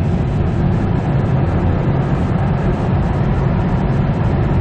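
Steady drone of engine and road noise inside the cabin of a 2002 Kia Carnival II diesel minivan coasting at road speed with the accelerator released, inside a road tunnel.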